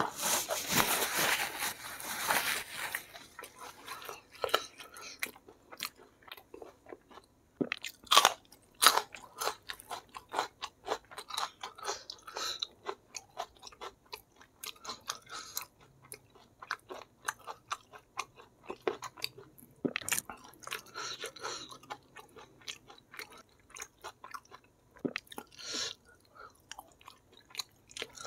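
Close-up mukbang eating sounds: a person chewing and crunching fried chicken soaked in spicy sauce, wet and sticky, with fingers tearing and handling the saucy meat. A loud, dense burst of sound fills the first three seconds, then irregular short crunches and wet clicks follow.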